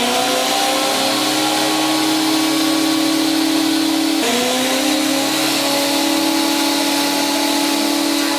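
Combination jointer-thickness planer running at full speed with a steady whine from its motor and cutterhead. About four seconds in, the pitch dips briefly and recovers, with a stronger hiss after it, as a board goes into the thickness planer and is cut.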